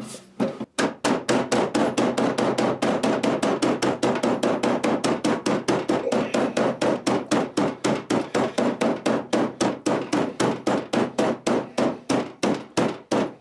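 Rapid, steady blows on a double-wall metal gas vent pipe, about five a second, knocking it down onto the collar of a wall vent termination to seat a stubborn, tight-fitting joint.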